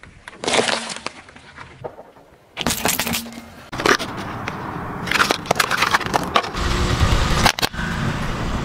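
Car tyre rolling over and crushing objects on asphalt, heard as cracks and crunches in several short bursts. Near the end comes a longer crunching stretch with a low rumble from the rolling tyre.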